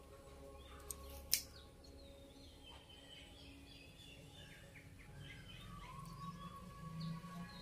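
A disposable lighter being struck: two sharp clicks about a second in, the second much louder. Faint bird chirps follow in the background.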